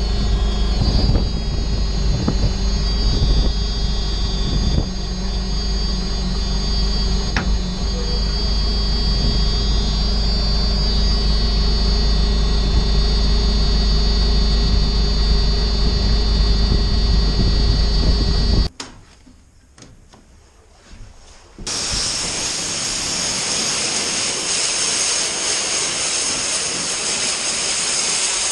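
Telehandler engine running steadily, heard from inside its cab. After a short quiet gap, a pressure washer lance starts spraying water in a loud, even hiss against a tractor tyre.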